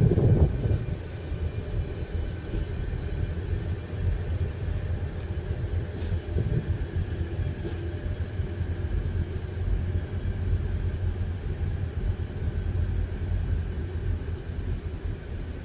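DB class 605 ICE-TD diesel-electric multiple unit running slowly past, its underfloor diesel engines giving a steady low rumble with a faint higher hum over it, loudest in the first moment.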